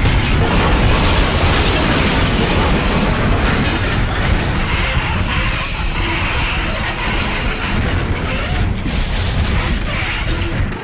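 Freight train wheels screeching under emergency braking over a heavy rumble, with thin high squeal tones that come and go.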